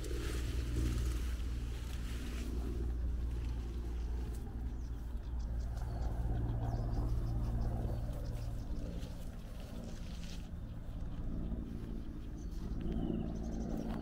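A steady low engine hum with several even tones, running throughout over faint outdoor background noise.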